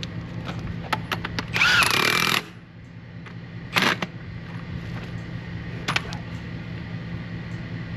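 Cordless impact wrench backing the pusher bolts out of a tractor's rear wheel hub. It runs in one burst of just under a second about a second and a half in, then in two short bursts near four and six seconds, over a steady low hum.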